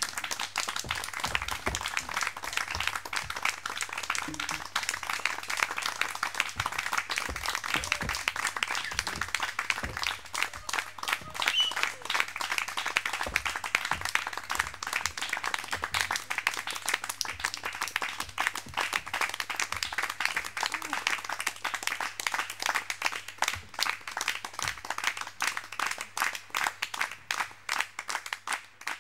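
Small audience applauding, a steady patter of many hands clapping that thins out and fades near the end.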